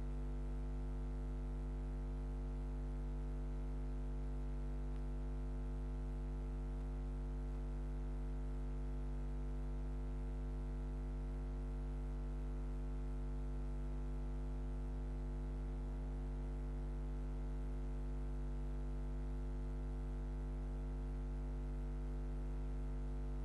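Steady low electrical mains hum on the audio line, a buzz with its overtones, with nothing else heard.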